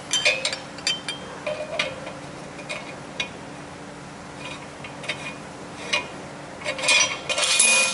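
Scattered metallic clinks and knocks as a slide-hammer bearing puller is worked in a Ford 8.8 rear axle tube to draw out the old axle bearing, with a louder burst of rattling metal about seven seconds in as it comes free.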